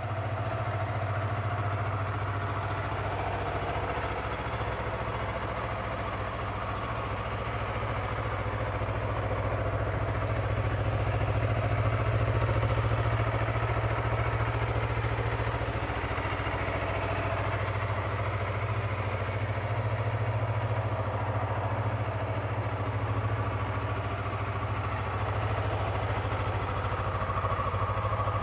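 Yamaha YZF-R3's 321 cc parallel-twin engine idling steadily, run as an idle test to show that the salvage engine runs.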